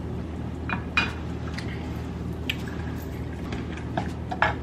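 Metal drinking straw clinking against a ribbed drinking glass as a mixed drink is stirred, a handful of scattered clinks over a steady low hum.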